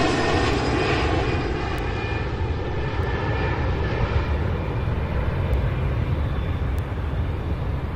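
Jet airliner taking off and climbing away: a steady engine roar with a high whine that fades over the first few seconds.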